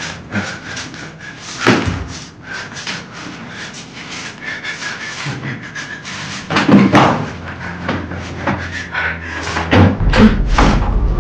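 Doors and windows being slammed shut, several separate bangs and thuds. Low droning horror music swells in near the end.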